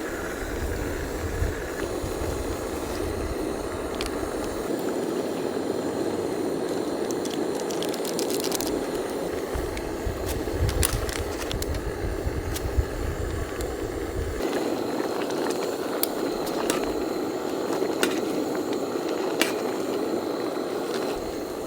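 Pot of ramen boiling on a camp stove: a steady bubbling hiss with scattered light clicks. Wind buffets the microphone with a low rumble that drops away about two-thirds of the way through.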